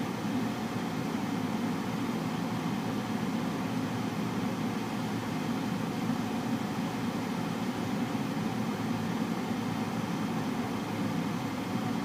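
Car air conditioner/heater running, a steady even rush of air with a low hum under it that does not change.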